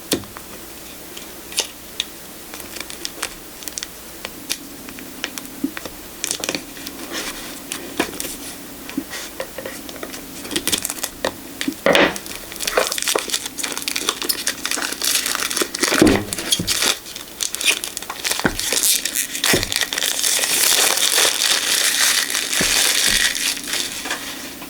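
Packaging on a boxed tarot deck being torn and crinkled off by hand. It starts as scattered light clicks and rustles, grows busier about halfway with a couple of louder knocks, and is densest near the end.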